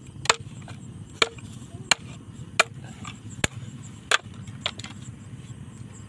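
Chopping on wood: seven sharp strokes, spaced unevenly about one every 0.7 seconds, several with a short ringing tone.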